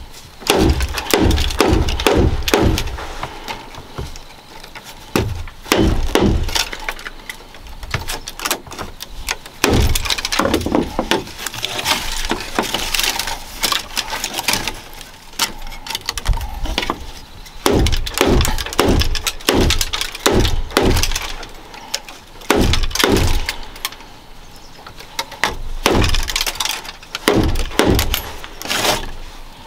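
Bamboo basket weaving: thin split-bamboo strips crackling and clicking as they are worked into the weave, with repeated runs of quick sharp knocks as a knife blade beats the strips tight.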